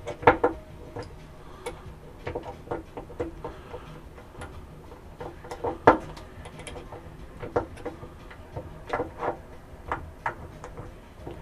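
Irregular small clicks and knocks of hands handling screws and the wooden support tool on a CNC 4th-axis rotary unit, with two louder knocks, one right at the start and one about halfway through.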